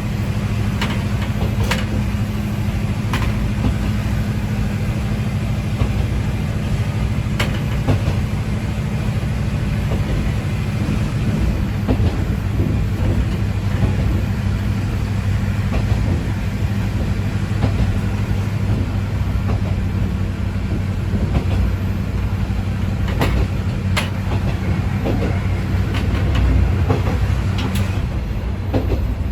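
Ex-JNR KiHa 20-series diesel railcar (KiHa 205) running along the line: a steady low diesel engine drone with the clack of wheels over rail joints now and then.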